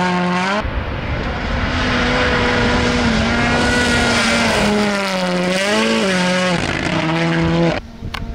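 Toyota GR Yaris Rally1's turbocharged 1.6-litre four-cylinder engine at full throttle on loose gravel, its note held high, then dipping and climbing around the middle and stepping down later as it shifts, over the rush of tyres on gravel. Near the end the sound cuts abruptly to a quieter, distant engine.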